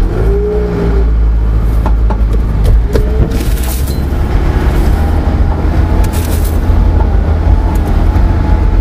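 Vehicle driving on a sandy desert track: a steady low engine and road rumble, with occasional knocks and rattles.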